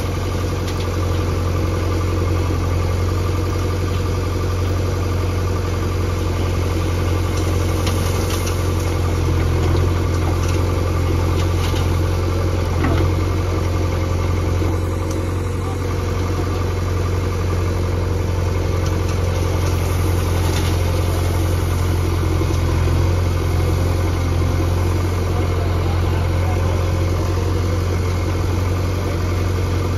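Diesel engine of a JCB backhoe loader running steadily with a strong low hum while the backhoe arm works.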